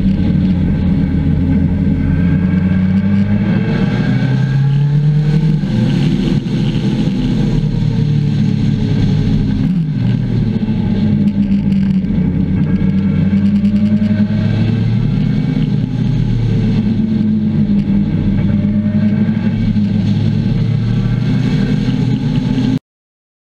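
Motorcycle engine heard from on board, its pitch climbing and dropping again and again as the bike accelerates and changes gear on a twisting road. The sound cuts off suddenly near the end.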